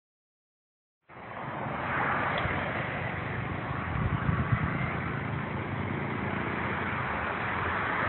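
Wind blowing across a mobile phone's microphone: a steady rushing hiss that starts about a second in, with a few low bumps from gusts.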